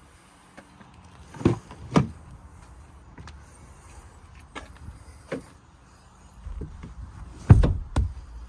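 Truck doors being shut: two pairs of heavy clunks, one about a second and a half in and another near the end, with a few light clicks and rattles between.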